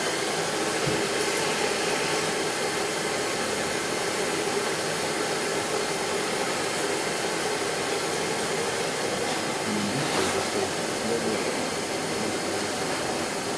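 Powerful gas burner torch burning with a steady hiss, its blue flame held against a polymer conveyor roller.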